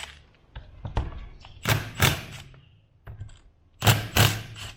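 Two pairs of loud, sharp metal knocks, the first about halfway through and the second near the end, with a few light ticks between them, from tools working on a power steering pump's bolts.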